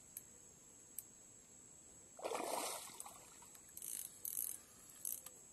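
Water splashing: one loud splash about two seconds in, then shorter splashy bursts, as a hooked pacu thrashes at the surface during the fight.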